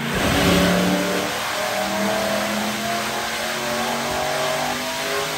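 LS-swapped Ford Crown Victoria's V8 running under load on a chassis dyno, its engine note climbing slowly through a pull.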